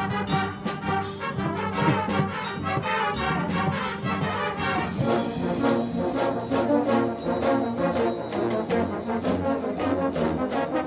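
High school marching band playing a brass-led passage, with sustained chords over steady drum and percussion hits. The brass grows fuller about halfway through.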